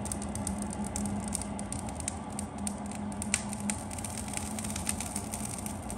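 Wood fire crackling in a fireplace insert, with irregular sharp pops, one loud pop about three seconds in, over a low steady hum.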